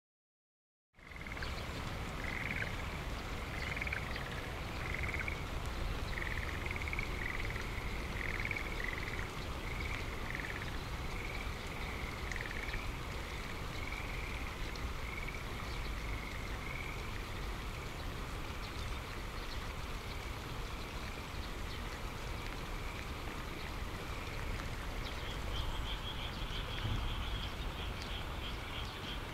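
Frogs croaking in a chorus of short, repeated calls over a steady hiss of falling rain. The calls thin out about halfway through, and a higher trilling call starts a few seconds before the end.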